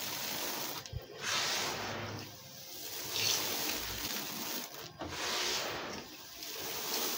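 Loose crumbled concrete grit and dust swept by hand across a concrete floor: a gritty scraping hiss that swells and fades with each of several sweeps.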